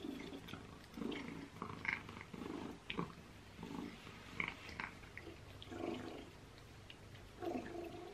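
Cat eagerly licking and eating a churu lickable treat from a wooden stick, a run of short, irregular mouth sounds.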